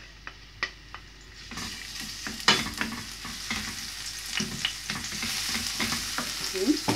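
Minced garlic sizzling in hot oil in a stainless steel pot, stirred and scraped with a wooden spoon. A few light knocks of the spoon come first, and the sizzle starts about a second and a half in, growing louder.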